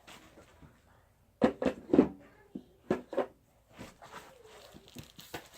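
A run of irregular knocks and clunks with light rustling between them, from objects being handled and set down; the loudest come about one and a half to two seconds in.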